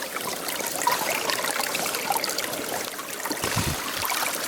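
Water trickling and running along a small irrigation ditch, a steady splashing flow. A brief low knock comes about three and a half seconds in.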